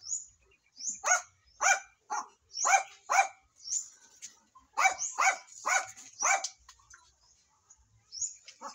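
A small dog barking repeatedly in short, high-pitched yaps, a dozen or so in quick irregular clusters, pausing for over a second near the end before two more.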